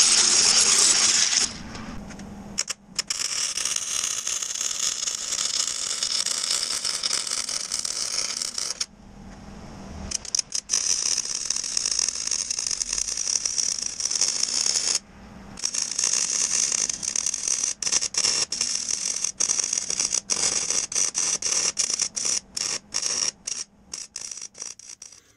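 Angle grinder with a flap disc grinding rusty steel for the first second and a half. Then electric arc welding on the steel body frame: a steady crackling sizzle in long runs, with two short breaks and many quick stops and restarts near the end as short stitch welds are laid.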